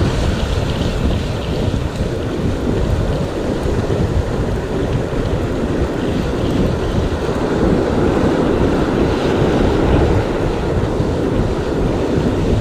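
Wind buffeting the microphone over the steady wash of surf breaking on a sandy beach.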